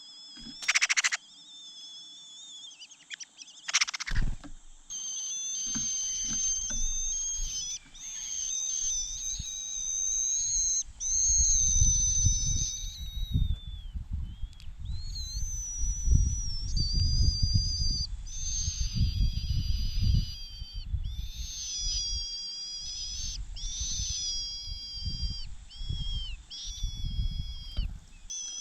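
Cuckoo chick begging: high, thin, drawn-out calls, near-continuous with short breaks, often two pitches at once, over a low uneven rumble.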